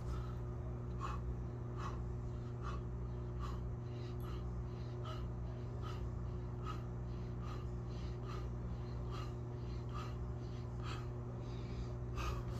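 A man's short, regular breaths, about one every second, in time with his push-ups, over a steady low hum.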